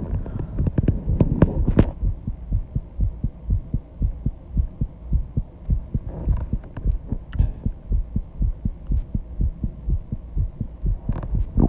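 A person's heartbeat picked up close on a microphone: a fast, even run of low thuds, the heart still pounding after intense exercise.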